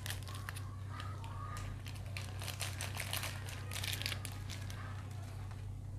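Thin plastic packaging crinkling and rustling, with scattered small crackles, while pickled chilies are emptied from it into a bowl of noodles. A steady low hum runs underneath.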